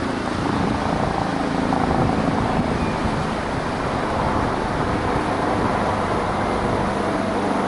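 HM Coastguard AgustaWestland AW189 helicopter flying overhead: steady rotor and turbine noise with a fast, low beat from the main rotor blades.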